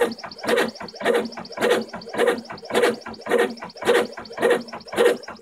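3D printer's stepper motors whirring in quick back-and-forth strokes, just under two a second, as the print head drags a fine-tip Sharpie across paper in hatching lines.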